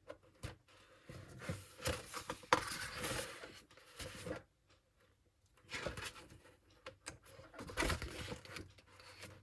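Paper handling as the pages of a heavy photo book are turned: rustling and sliding in several short bursts, with soft taps and clicks, and a brief still pause near the middle.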